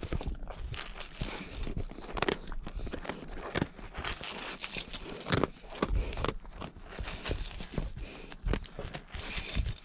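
Large Newfoundland dog crunching dry kibble from a metal bowl: a rapid, irregular run of crunches and clicks as it chews.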